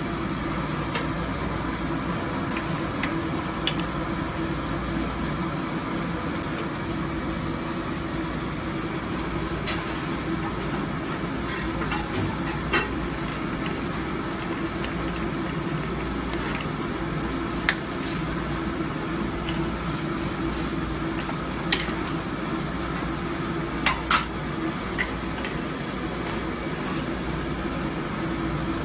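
A metal spoon clinking against small metal stew pots now and then as the stew is stirred, a few sharp clinks in all, over a steady hum from the gas burners and kitchen.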